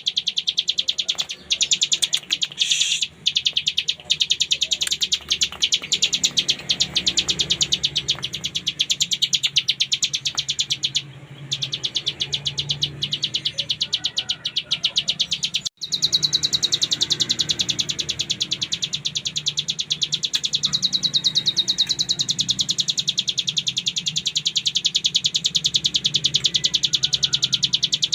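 Ciblek gunung (a prinia) singing a continuous, very fast rattling trill of high notes, the 'ngebren' song prized for training songbirds, with a brief break about halfway through.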